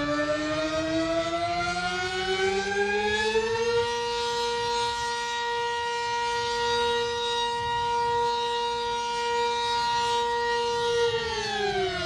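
Emergency-alert siren played in reverse: its pitch rises over the first few seconds, holds one steady tone, then starts to fall near the end.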